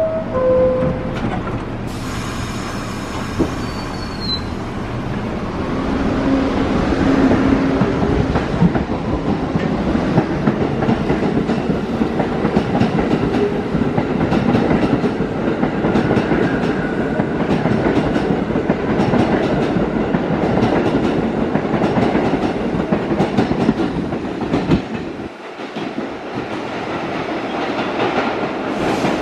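R62A subway train pulling out of the station: the tail of a falling two-note door chime, then the train picks up speed with wheels clattering over rail joints and a dense rattle that builds and holds. Near the end the sound drops suddenly and another train is heard more faintly.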